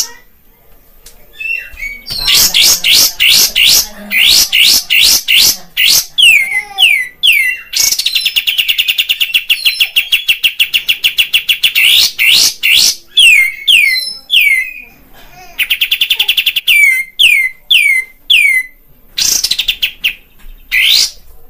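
Kapas tembak bulbul singing hard: a run of sharp, quickly falling whistled notes broken by long, rapid rattling trills, one near the middle and a shorter one later. This is the vigorous 'gacor' song that keepers play as a lure to rouse other kapas tembak.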